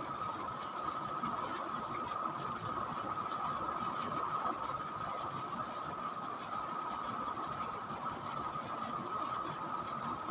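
A small motor running steadily, with a constant high whine over a low hum.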